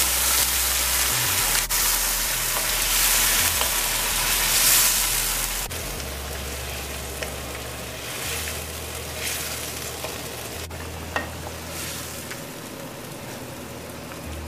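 Blended saijan (drumstick) leaves sizzling in hot oil in a nonstick wok, loudest for the first five seconds or so and then dying down, while a spatula stirs them with a few light clicks against the pan.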